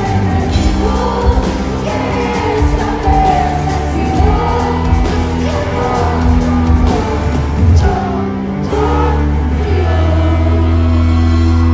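Live pop band playing loudly with a woman singing the lead vocal over it.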